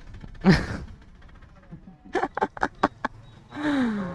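Brief fragments of a man's voice, one near the start and a falling one near the end, with a quick run of about six short clicks or taps in between.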